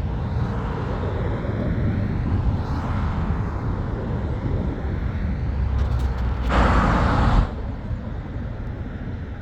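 A landing airplane's engines rumbling steadily as it passes. About six and a half seconds in, a louder rush of noise starts and then cuts off suddenly.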